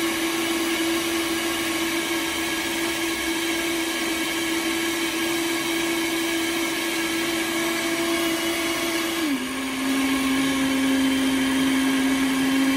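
Countertop blender with a glass jug running steadily, blending a berry protein smoothie. Its motor hum steps down slightly in pitch about nine seconds in and carries on a little louder.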